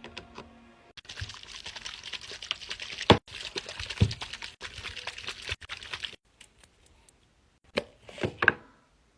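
Dense crackling and crinkling handling noise for several seconds, broken by a few sharp snaps, then a handful of short pops and clicks near the end.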